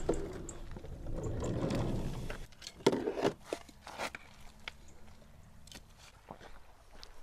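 Side sliding door of a Fiat Doblo van unlatched and slid open along its track, clunking into its open stop about three seconds in. A few light clicks and knocks follow.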